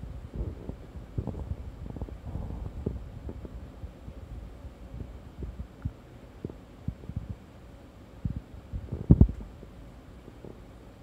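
Stomach gurgling as it digests a meal of hamburger steak: irregular low gurgles and short pops, the loudest about nine seconds in.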